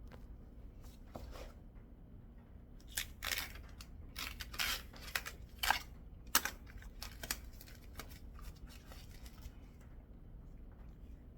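Packaging being torn open by hand: a run of short, sharp tearing rips, bunched together from about three seconds in to past seven seconds.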